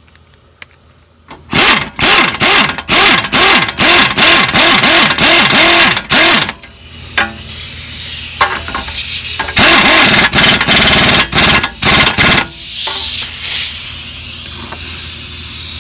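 Pneumatic wrench running down a tie rod end nut in two loud bursts of rapid hammering, with a rising hiss between the bursts and a steady hiss after them.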